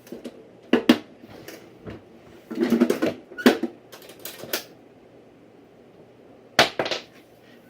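Knocks and clicks of a tool box being handled and opened, in several short clattering bursts, the busiest one about three seconds in.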